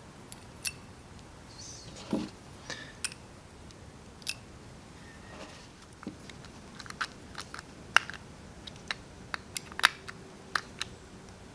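Small screws being driven into the top of a Bing 64 carburetor with a screwdriver, heard as scattered light clicks and ticks of metal on metal. The clicks come more often from about halfway through.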